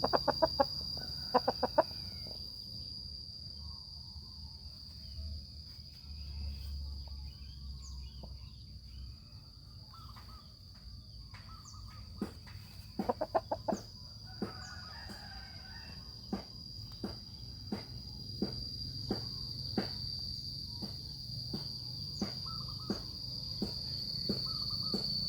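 A chicken clucking: short runs of clucks near the start and again around the middle, then single clucks about once a second, over a steady high-pitched insect trill.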